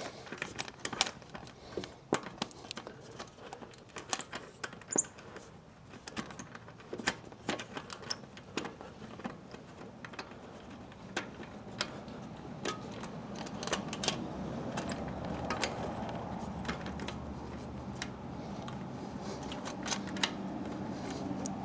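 Small metal clicks and clinks of key rings, cable and seat-bolt hardware being handled while a quick-release seat bolt is fitted. Many sharp separate ticks in the first half; a low steady noise builds up in the second half, with fewer clicks.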